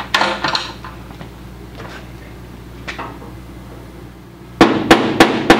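A flathead screwdriver working at the paint-clogged screws in the metal side panel of a 1930s Wayne 60 gas pump: light handling at first, then a quick run of about five sharp knocks near the end.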